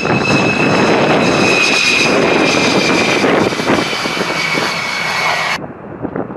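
Fighter jet engine running loud: a high turbine whine sliding slowly lower over a dense roar. Near the end the high whine cuts off suddenly, leaving a duller rumble.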